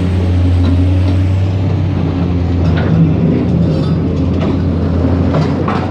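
Heavy diesel engine of road-construction machinery running steadily at close range, with scattered knocks and clanks.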